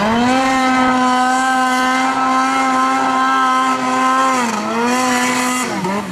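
Snowmobile engine held at high revs as the sled skims across open water: a steady, high engine note. A little past four seconds the revs dip briefly and climb back, then waver up and down near the end.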